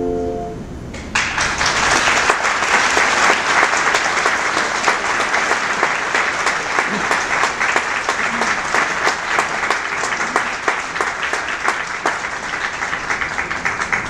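The last sustained handbell chord dies away, and about a second in the audience breaks into steady applause.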